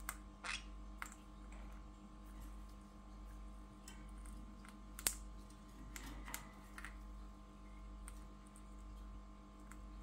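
Scattered light clicks and taps from a Pyrrhura conure's beak as it picks through seed in a steel food bowl, the sharpest click about five seconds in, over a steady low hum.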